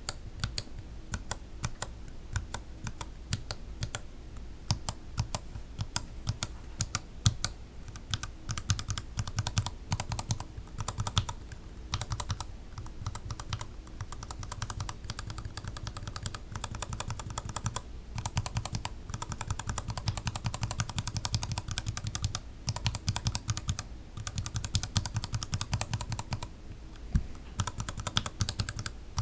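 Gateron Yellow linear mechanical keyboard switches being typed on in fast runs of keystrokes, a dense clacking of key presses and bottom-outs with a few brief pauses.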